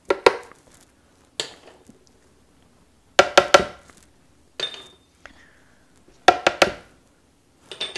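Kitchenware clinking and tapping against the blender jar as spices are tipped in: several short clusters of sharp knocks, some with a brief ring, separated by quiet pauses.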